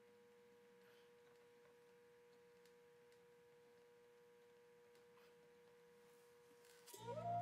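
Near silence: a faint steady hum with a few faint ticks. Music comes in near the end.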